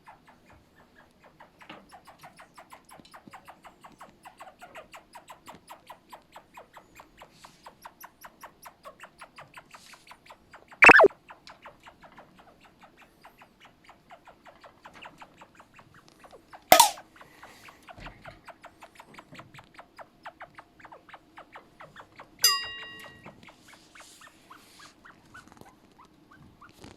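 Chinchilla in breeding season calling: a long run of soft, quick chirps, about six a second, broken by three much louder sharp cries, about 11, 17 and 22 seconds in. A faint steady hum sits underneath.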